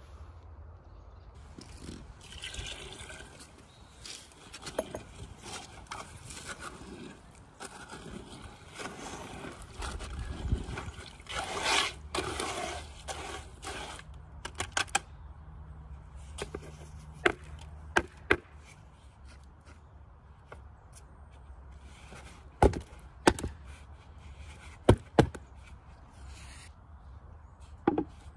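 Water poured into dry concrete mix in a plastic planter and a hand trowel scraping and stirring it. In the second half, a series of sharp knocks of wooden boards being set against each other.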